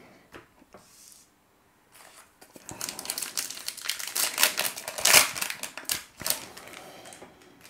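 A trading-card pack's foil wrapper crinkling and tearing as it is ripped open. A few light handling clicks come first, then about three seconds of dense crackle starting around three seconds in.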